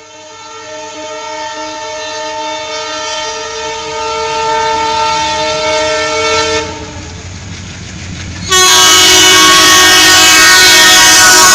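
Indian Railways locomotive horn: a long blast that grows louder as the train approaches, breaks off, then sounds again much louder about three seconds before the end and holds, over the low rumble of the train coming through.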